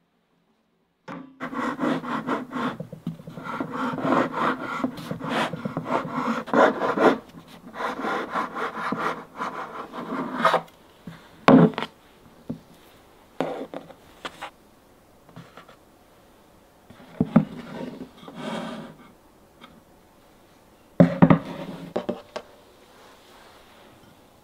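Rubbing and scraping of a sponge cake being handled and sliced into layers with a long knife on a wooden cutting board: a long stretch of steady rasping, then shorter scrapes with a few sharp knocks.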